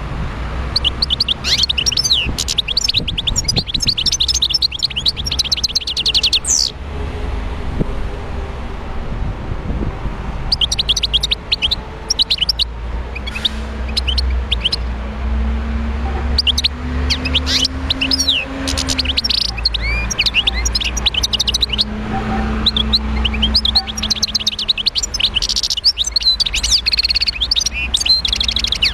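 Wild-caught European goldfinch singing: rapid twittering phrases of chirps and trills in four bursts, over a steady low rumble.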